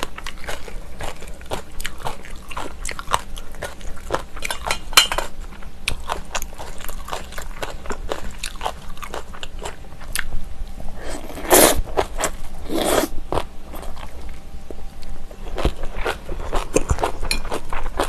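Close-miked eating: crisp, crunchy chewing of kimchi, many short crackling crunches in quick succession. Two louder, drawn-out mouth sounds come about two thirds of the way in.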